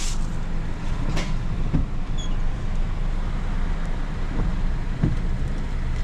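Car engine idling, a steady low rumble heard from inside the cabin, with a few light clicks.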